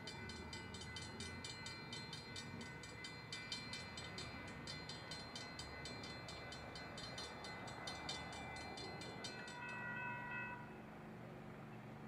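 Light-rail warning bell ringing rapidly, about six strokes a second, stopping about nine seconds in, over the low rumble of a trolley train. About ten seconds in, a short horn-like tone sounds, and the rumble falls away soon after.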